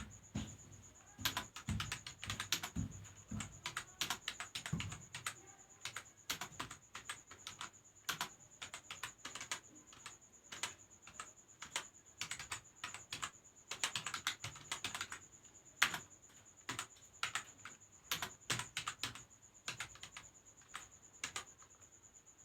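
Typing on a computer keyboard: quick, irregular keystrokes in runs with short pauses, over a steady high-pitched whine.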